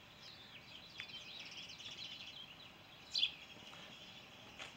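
Small songbirds chirping and warbling over a quiet outdoor background hiss, with one sharper, louder chirp about three seconds in.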